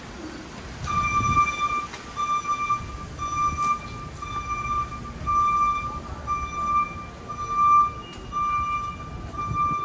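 An electronic warning beeper on a city street, sounding the same high beep over and over, about once a second, over low traffic rumble.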